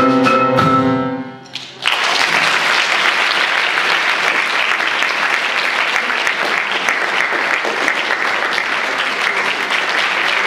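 A marimba with piano rings out the last notes of a piece, which fade away. After a brief pause, steady applause breaks out suddenly and keeps going.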